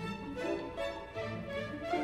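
Background instrumental music, with a bowed string melody over sustained lower notes.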